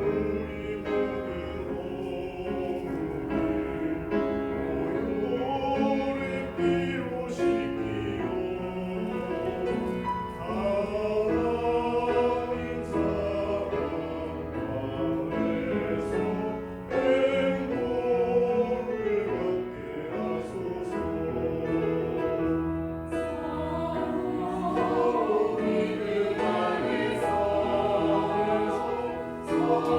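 Church choir singing a Korean hymn anthem in parts, many voices together.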